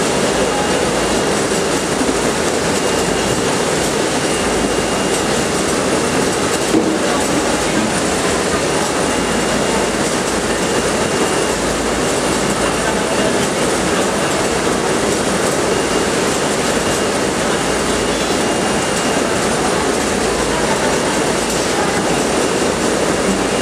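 Steady mechanical din of a poultry dressing plant's processing line, the overhead shackle conveyor running with a constant rolling clatter and rumble.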